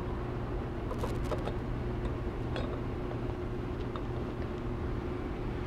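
Steady low background hum, with a few faint clicks and taps as a paper air filter cartridge is handled and set into its plastic air cleaner base.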